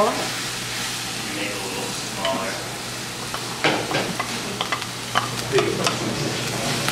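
Minced garlic and radish sizzling in oil in a frying pan while a wooden spatula stirs and scrapes. A few sharp taps come from about the middle on, as chopped pickled radish is scraped in from a bowl.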